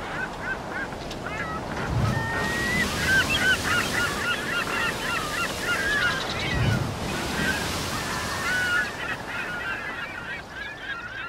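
A flock of birds calling, many short overlapping cries, over a steady wash like surf, with two low thumps about two and six and a half seconds in.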